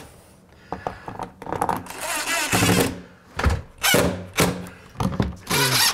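DeWalt cordless drill-driver running in short bursts as it drives screws into a door window's frame, with sharp knocks between the bursts.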